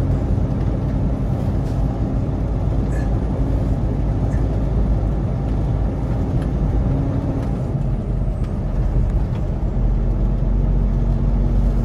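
Semi truck's diesel engine running steadily, heard from inside the cab as the truck pulls slowly out onto the road; the engine note shifts about seven to eight seconds in.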